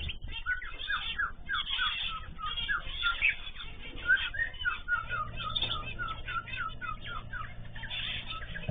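Many small cage birds chirping and calling over one another in a dense string of short, quick notes. A low steady hum joins in about halfway through.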